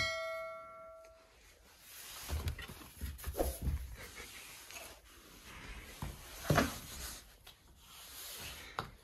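A short chime at the start, then a fox and a puppy scuffling and bumping around wooden steps on a tiled floor, with a few short high yelps, the loudest near the middle and just past it.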